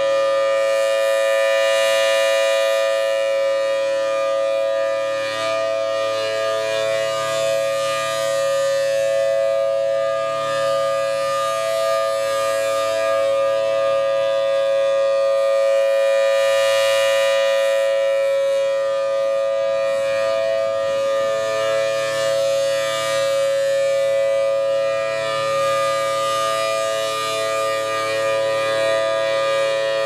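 Federal Signal Thunderbolt 1000T tornado siren wailing at a steady pitch, held at full speed, with its blower running. The sound swells and fades slowly as the rotating horn sweeps toward and away.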